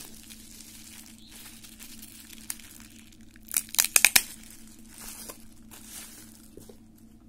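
Plastic bubble wrap crinkling as it is handled and pulled off a boxed phone, with a quick burst of several loud crackles about halfway through.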